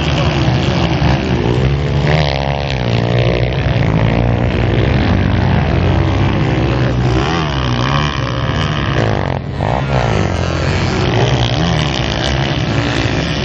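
Motocross bike engines revving hard and easing off again and again as riders race over the dirt track's jumps and ruts, the pitch climbing and falling several times.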